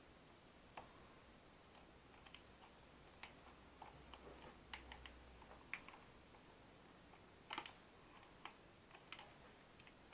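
Faint, irregular small clicks and taps of a flathead screwdriver working at a plastic tape measure case, trying to pry it apart where a screw is stripped.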